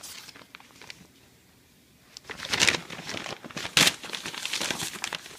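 Gift wrapping paper being crumpled and torn: quiet for the first two seconds, then bursts of loud crinkling with a sharp crackle near four seconds in.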